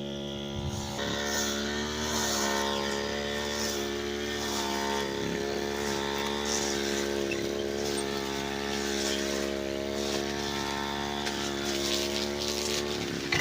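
Petrol brush cutter engine running at a steady high speed, its pitch wavering only slightly.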